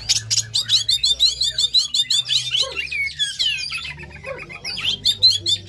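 Oriental magpie-robin (kacer) singing a fast, varied song of quick rising and falling whistles and chatter, with a short lull a little past the middle.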